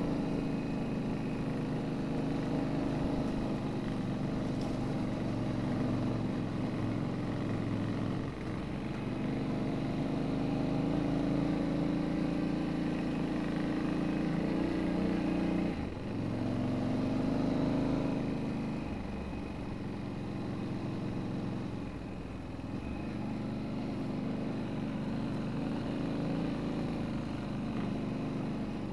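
Motorcycle engine running steadily under load on a gravel track, with the throttle eased off briefly about 8 and 16 seconds in and a quieter stretch in the second half.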